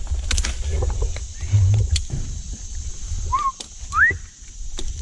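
Northern bobwhite giving its 'bob-white' call about three and a half seconds in: a short whistled note, then a louder whistle sliding sharply upward. Under it runs a low rumble with scattered clicks.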